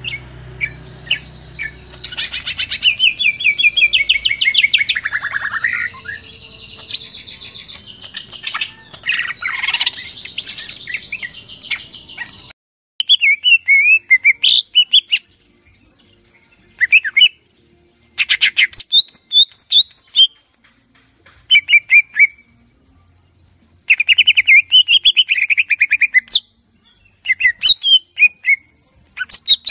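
Cucak ijo (greater green leafbird) singing a fast, varied song of whistles and chattering trills. It is continuous over a light hiss at first, then, after a sudden change about halfway through, comes in short bursts with brief pauses between them.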